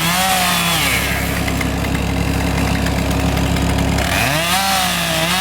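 Chainsaw engine running at high revs; about four seconds in it drops off briefly and revs back up.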